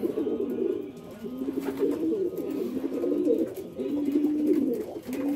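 Racing homer pigeons cooing in their loft, several low warbling coos overlapping one another.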